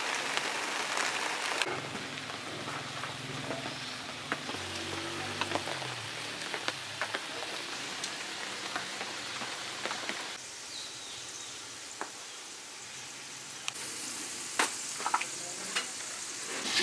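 Steady hiss of rain and sizzling frying oil, broken by scattered sharp clicks and clinks. There is a faint low hum early on and a quieter stretch past the middle.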